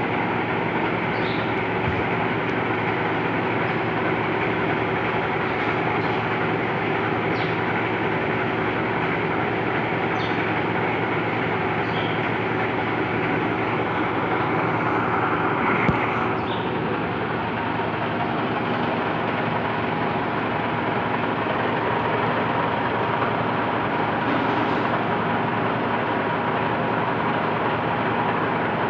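Metal lathe running steadily, turning a shaft supported in a steady rest for center drilling, with a continuous mechanical drone and a few faint, brief squeaks. There is a single sharp click about sixteen seconds in.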